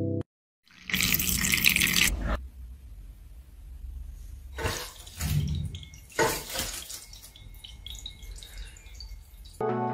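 Liquid pouring and splashing in three bursts: a long loud one about a second in, then two shorter ones in the middle.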